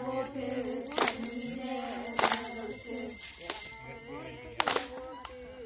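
Group of women singing a Tamil kummi folk song in unison, held sung notes broken by sharp hand claps every second or two, the claps the loudest sounds.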